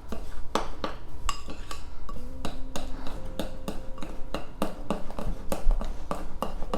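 A utensil stirring thick cake batter in a bowl, knocking and clinking against the bowl's sides about three times a second.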